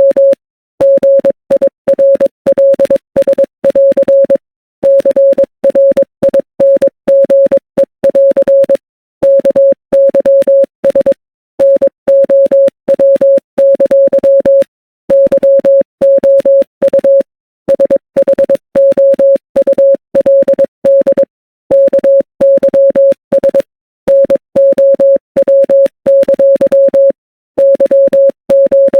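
Morse code sent as a steady electronic beep, keyed in quick runs of short and long tones with brief pauses between words.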